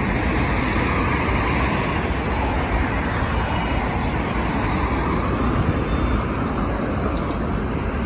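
Steady road traffic noise: cars driving past on the street, a continuous rush of engines and tyres.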